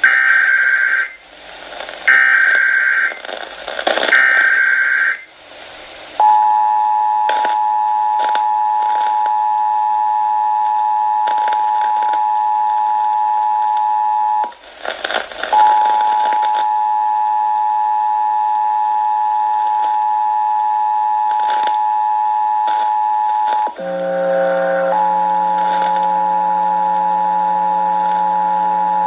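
Emergency Alert System SAME header: three short bursts of screechy digital data, about a second apart. Then comes the steady two-tone attention signal (853 and 960 Hz), which breaks off briefly and resumes. Near the end a low buzzing hum comes in underneath it.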